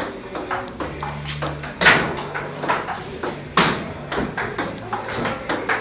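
Table tennis rally: the plastic ball clicking off rubber paddles and a small table about three times a second, in an uneven rhythm.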